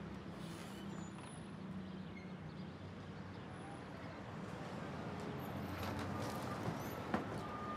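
Street ambience: a steady hum of city traffic, with a couple of faint clicks near the end.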